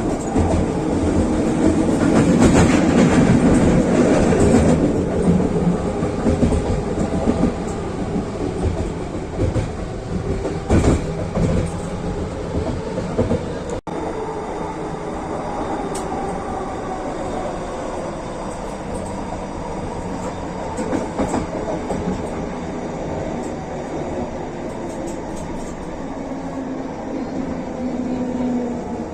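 SkyTrain metro train running on its track, wheels clacking over the rails, loudest in the first few seconds. After a momentary break about halfway, the running settles into a steadier sound with a whine that slowly falls in pitch.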